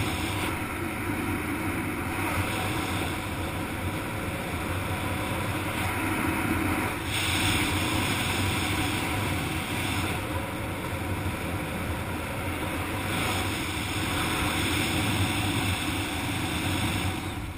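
Wind rushing over the microphone in flight under an open parachute canopy, a steady rush that swells and eases every few seconds.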